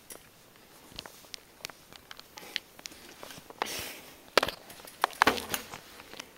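BMX bike's wheel coasting and the bike being handled: scattered, irregularly spaced clicks and knocks, with a short hiss midway and a cluster of louder knocks near the end.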